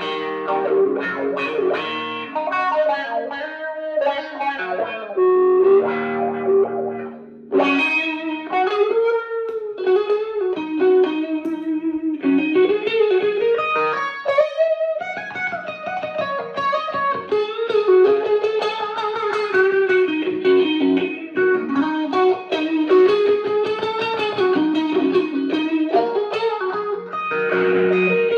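Fender Stratocaster electric guitar played through a Fender Blues Junior tube amp: single-note lead lines with string bends and vibrato, and a short break about seven seconds in.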